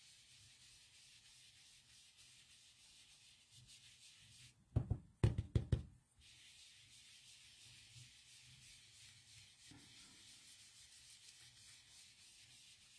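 Sponge dauber rubbing ink onto cardstock through a sticky-note mask, a faint steady scuffing, with a quick cluster of several knocks about five seconds in.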